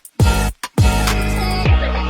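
Electronic background music with a heavy bass beat, cutting out briefly twice in the first second.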